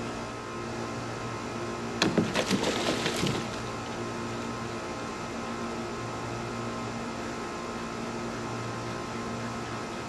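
A steady machine hum throughout. About two seconds in comes a quick run of sharp cracks and rattles that lasts about a second and a half.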